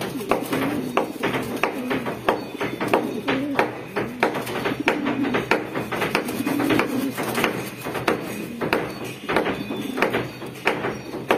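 Domestic pigeons cooing: low, wavering coos repeated again and again, over frequent sharp clicks and taps.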